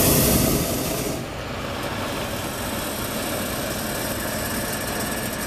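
Hot-air balloon's propane burner firing, a loud hiss that cuts off about a second in. A steady low engine-like hum continues after it.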